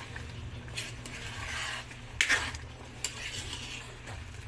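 Metal spoon stirring thick creamy sauce in a metal pan, scraping and clinking against the pan, with the sharpest clink about two seconds in.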